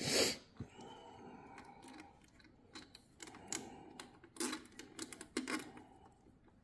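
Scattered light clicks and clinks of crimped ring-terminal wire leads being handled on the terminal studs of a generator's sheet-metal terminal box, after a short knock right at the start.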